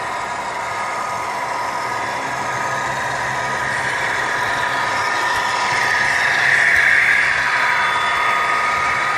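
Model freight train running along the layout track: a steady whir of locomotive and wheels that grows louder as the train comes out of the tunnel and passes close, loudest about seven seconds in.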